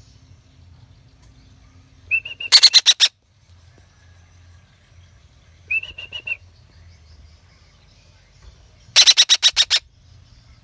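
Young parakeet calling in bursts of rapid, sharp, repeated notes: a quick run of about five calls about two and a half seconds in, a shorter call around six seconds, and a run of about seven calls near the end. A faint low hum sits underneath.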